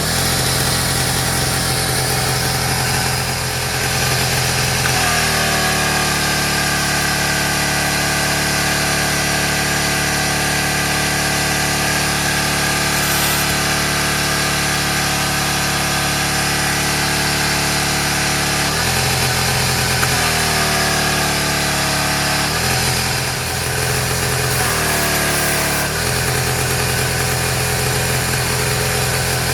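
Small gasoline engine of a pressure washer running continuously. Its pitch drops about five seconds in, comes back up after about nineteen seconds, and shifts down and up a few more times near the end.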